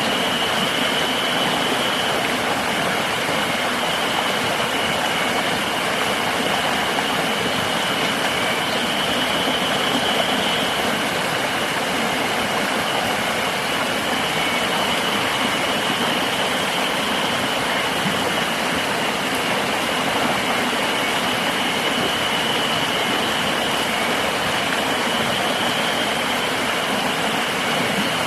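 River water rushing steadily, with a constant high-pitched drone of insects over it.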